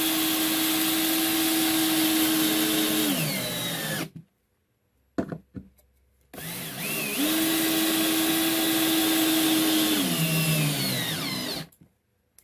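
Power drill driving wood screws, in two runs of several seconds each: the motor spins up to a steady pitch, holds, then winds down, with a short pause between the two screws.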